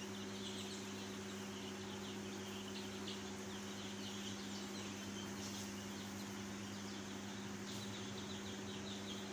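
A flock of young layer chicks peeping, many short high chirps overlapping, over a steady low electrical hum.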